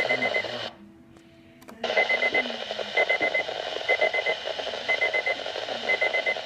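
Weather radio receiver's alert alarm sounding for a severe thunderstorm warning: bursts of four quick high beeps, repeating about once a second over radio hiss. The sound cuts out for about a second shortly after the start, then the beeps resume.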